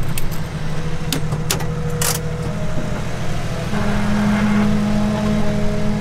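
Off-road Jeep engine running at low revs, with a few sharp knocks in the first two seconds. About two-thirds of the way through, the engine note steps up and holds steady.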